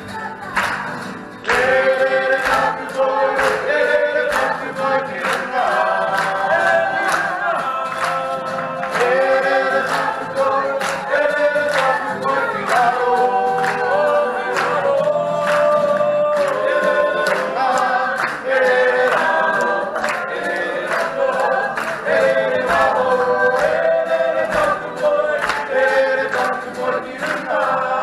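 Several voices singing a song together in harmony, with a steady rhythmic beat underneath.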